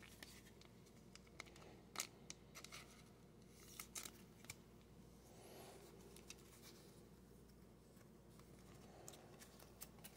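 Near silence with faint, scattered scrapes and light clicks of trading cards and clear plastic sleeves being handled, as a card is slipped into a sleeve.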